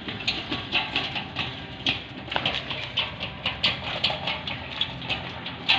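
Folding metal gate being pushed on its small wheels, the rollers and hinged panels giving an irregular run of quick clicks and rattles.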